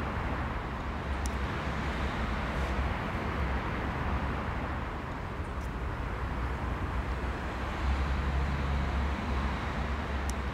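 Steady outdoor background noise of distant road traffic, a constant low rumble with an even hiss above it and a few faint ticks.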